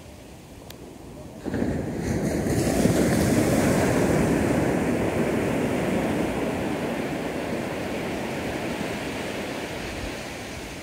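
Ocean surf breaking on a beach: the rush swells suddenly about a second and a half in, then slowly fades.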